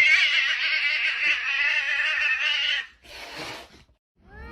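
A cat yowling: one long wavering call that ends about three seconds in, followed by a short noisy burst.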